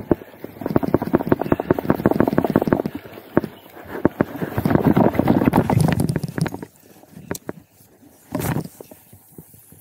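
Daiwa Fuego LT 2500 spinning reel cranked fast close to the microphone: a dense run of rapid clicking and rattling in two stretches of about two and a half seconds each. There are a few short knocks near the end.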